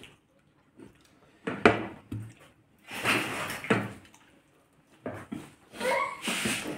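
People eating at a table: slurping and the clink and knock of dishes in short scattered bursts, with a brief murmur of voices near the end.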